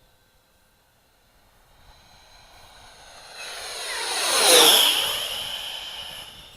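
Freewing F-5 electric ducted-fan model jet making a fast pass: its fan whine swells to a peak about four and a half seconds in, drops in pitch as it goes by, then fades.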